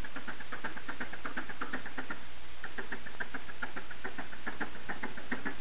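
Rapid, even knocking, about six knocks a second, over a steady low hum.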